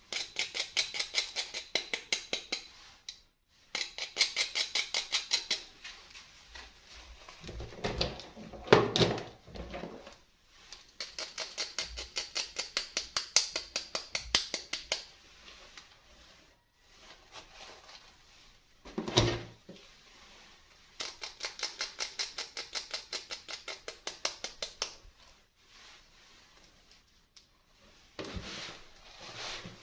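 Packaging being worked open during a doll unboxing: runs of quick, evenly spaced clicks, about six a second, each run lasting a few seconds, broken by louder handling knocks and rustles twice.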